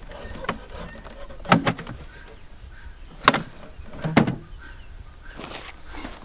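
Sharp knocks and clicks from a plastic solar electric-fence energizer as it is handled, tilted and switched on: four irregularly spaced clacks, the loudest about three seconds in.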